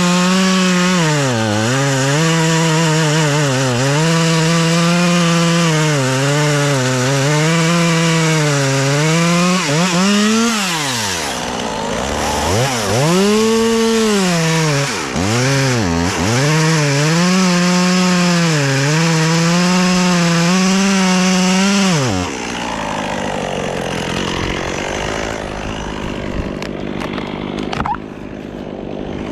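Gas chainsaw cutting wood at full throttle, its engine pitch repeatedly sagging and recovering as the chain bogs under load in the cut. About a third of the way in the throttle drops briefly to idle and revs back up. The engine sound stops about three-quarters of the way through, leaving a quieter rushing noise.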